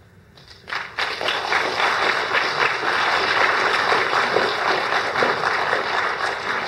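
Audience applauding, starting about a second in and going on steadily.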